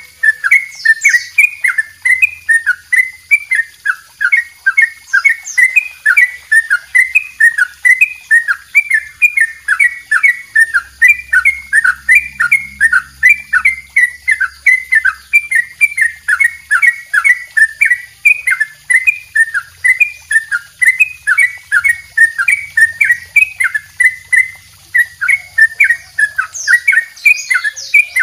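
Caged yellow-vented bulbul (trucukan) singing an unbroken run of quick repeated notes, two to three a second: the long "double ropel" rapid song that bird keepers use as a tutoring track.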